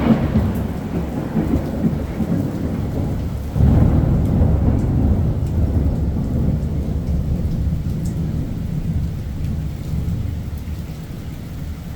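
Thunderstorm with rain: a rumble of thunder dying away, then a second sudden clap about three and a half seconds in whose deep rumble rolls on and slowly fades.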